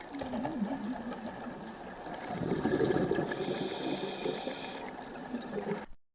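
Underwater ambience picked up by the camera's microphone: a steady watery rush and hiss with a few faint steady tones, swelling a little in the middle and cutting off suddenly near the end.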